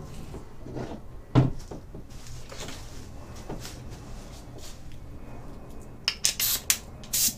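Compressed-air blow gun on a workshop airline giving several short test blasts of air near the end, after handling clatter and one sharp knock about a second and a half in.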